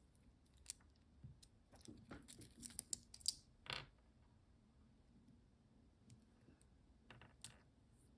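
Soft, scattered clicks and light rustling from handling a stainless-steel watch bracelet and its clasp, with a cluster of small metallic clicks in the first few seconds and two more near the end.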